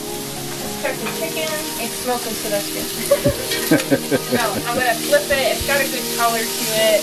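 Chicken pieces sizzling in oil in a cast-iron skillet while a metal spatula scrapes and turns them, knocking against the pan a few times, most busily in the middle.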